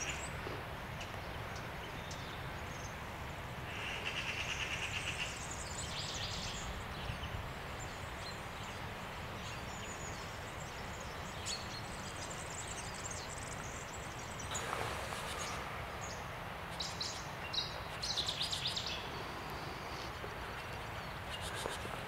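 Woodland ambience with a steady low hiss and birds calling: a fast trill about four seconds in, and short bursts of high, rapid chirps in the second half.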